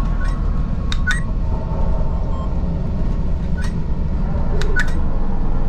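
Steady low rumble of the Millennium Falcon simulator cockpit, with a few short clicks and beeps as the glowing console buttons are pressed.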